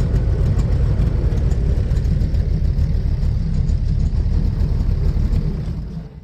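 Airboat engine and propeller running steadily at low speed, then dying away in the last second as the engine shuts down.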